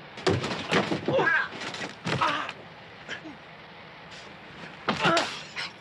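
A scuffle between men: grunts and groans mixed with thumps, several in quick succession in the first two and a half seconds, then a short pair near the end.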